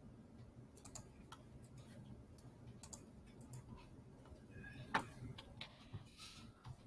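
Faint, scattered clicks of a computer mouse and keyboard over quiet room noise, with one sharper click about five seconds in.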